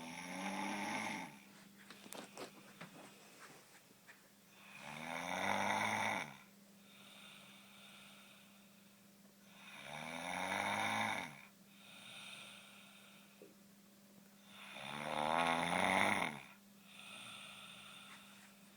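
Snoring: four loud snores, each about a second and a half long and about five seconds apart, with quieter breaths between them.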